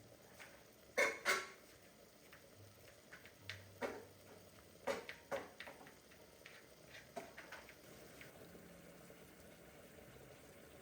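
Dishes and utensils being handled: scattered clinks and knocks, with a louder pair about a second in and a few more around four to five seconds in.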